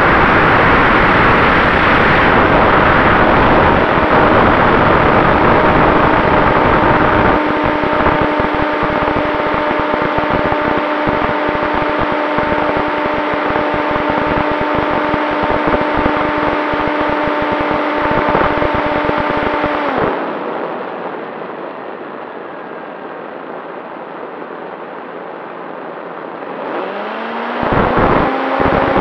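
Electric brushless outrunner motor (Turnigy XP 3536, 1000 kV) and propeller of an RC Super Cub, heard from the onboard camera amid heavy rushing air. It holds a steady whine at cruise throttle, cuts out suddenly about two-thirds through, leaving a quieter hiss of air while gliding, then spools back up with rising pitch near the end.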